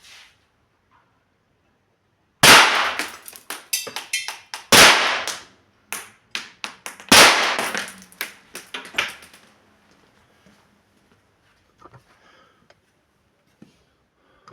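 Umarex TP 68 .68-calibre CO2 pistol fired three times, about two and a half seconds apart. Each sharp shot is followed by a quick, fading clatter of smaller knocks.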